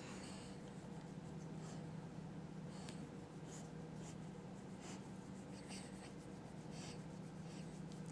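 Faint, short scratchy rustles, about ten of them spread irregularly, over a steady low hum.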